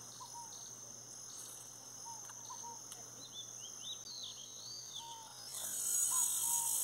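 Steady high drone of insects with scattered short bird chirps over it; a louder high hiss comes in about five and a half seconds in.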